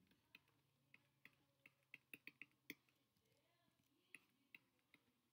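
Faint, irregular clicks of a stylus tapping on a tablet screen while writing by hand, about a dozen of them, with a gap of about a second past the middle, over a faint steady hum.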